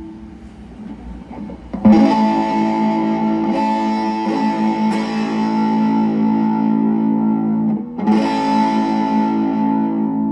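Cort CR50 electric guitar played through a Cort MX15R amplifier. A chord is strummed about two seconds in and left to ring, and a second chord is strummed about eight seconds in and rings out.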